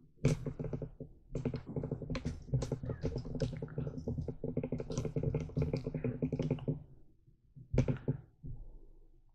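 Handling noise from a camera being picked up and carried: a run of clicks and knocks with a low rumble for about seven seconds, then a single thump about eight seconds in as it is set down.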